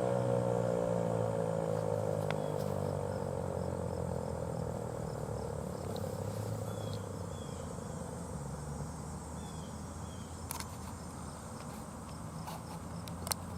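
ASC T-128 outdoor warning siren winding down at the end of its alert test, its tone falling in pitch and fading away over the first few seconds. Afterwards only a low outdoor hum remains, with a few faint chirps and clicks.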